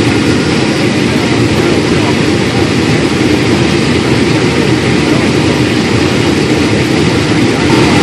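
Case IH 2366 combine harvesting corn, heard from inside the cab: a loud, steady drone of the engine and threshing machinery with a constant low hum, while shelled corn pours into the grain tank behind the cab.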